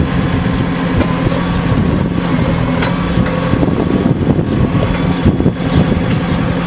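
JCB backhoe loader's diesel engine running steadily while its rear digging arm works into an earth-and-stone bank, with a few faint knocks.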